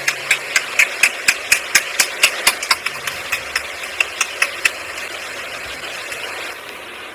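Rapid, even clicks, about four a second, over a steady hiss; the clicks thin out after about five seconds.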